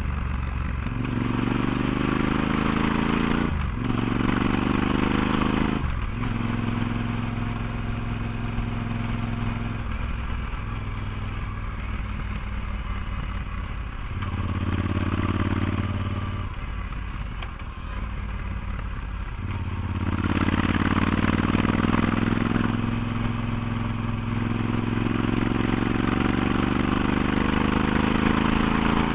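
Yamaha XT1200Z Super Ténéré parallel-twin engine through a LeoVince slip-on exhaust with its dB-killer fitted, heard from the tail of the bike while riding uphill. It pulls up through the gears with shifts about 3.5 and 6 seconds in, runs lower and steadier through the middle, and accelerates again from about 20 seconds in, with wind and road noise.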